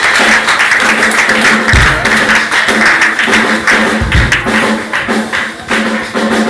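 Live band music, loud and rough-sounding as recorded from the crowd, with a deep thump about every two seconds.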